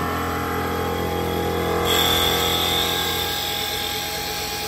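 CNC wood lathe running, its motors humming steadily. About two seconds in, the cutter bites into the spinning wooden blank and a high-pitched cutting whine with a hiss joins in, loudest just after it starts.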